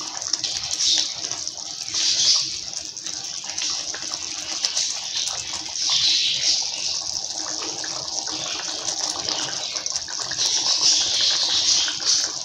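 Wooden spatula stirring a thick tamarind-based garlic gravy (poondu kuzhambu) as it boils in a wide pan. The liquid sloshes and bubbles, swelling and fading unevenly with the strokes, while the gravy reduces until the oil separates.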